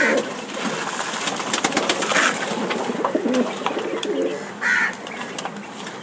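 Caged pigeons cooing, over a run of small clicks and taps of dried and soaked pulses being put into a plastic feeder and picked at.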